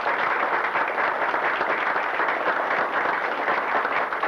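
An audience applauding steadily: dense clapping from many hands.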